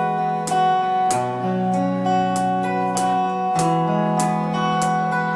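Guitar playing chords, struck about every half second, with the notes ringing on between strikes and the chord changing every second or so.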